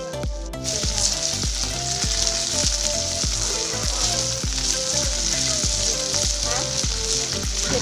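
Beetle grubs sizzling as they fry in a pan over an open wood fire, a steady sizzle that starts about half a second in. Background music with a steady beat plays throughout.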